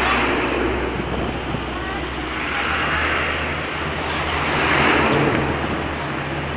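Road traffic passing close by: a steady low engine hum with tyre and wind noise that swells twice, about three and five seconds in, as vehicles go past.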